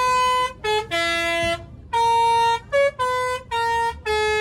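Bus telolet horn playing a tune: a quick run of loud horn notes at changing pitches, some held up to nearly a second and some clipped short, with a brief pause partway through.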